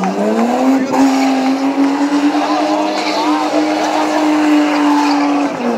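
BMW E30 engine revving up in about the first second and held at steady high revs as the car drifts with its rear tyres spinning, dropping off just before the end. Spectators' voices are heard faintly over it.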